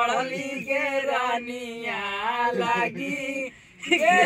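A man singing unaccompanied in long, drawn-out, gliding lines, with a short breath pause near the end.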